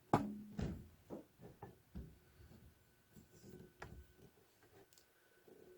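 Handling noise: a scatter of light knocks and clicks, the loudest in the first second, over a faint steady hum.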